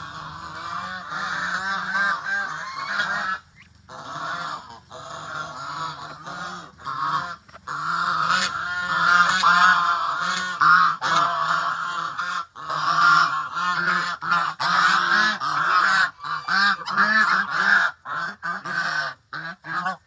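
Domestic geese honking over and over in a dense, overlapping run of calls, with short breaks about three seconds in and around twelve seconds.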